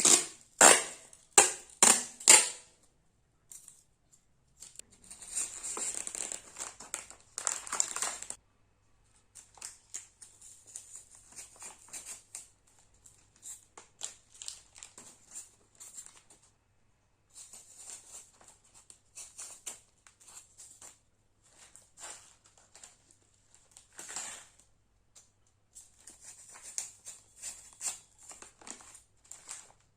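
Plastic snack wrappers crinkling and rustling as they are handled, in bursts with short pauses. A few sharp clicks come in the first couple of seconds.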